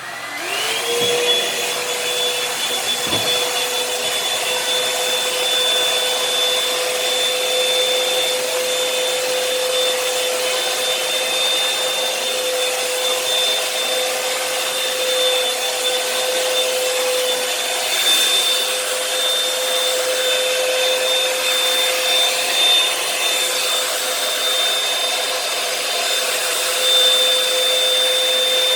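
Revlon One-Step hair dryer and volumizer switched on, its motor spinning up with a quickly rising whine, then running steadily: a high whine over the rush of blown air.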